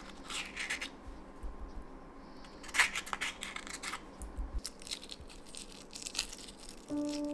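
Wooden spoon scraping soft avocado flesh out of the skin into a glass bowl, a run of soft scrapes with one sharper scrape about three seconds in. Then comes the crackle of eggshell being peeled off a hard-boiled egg.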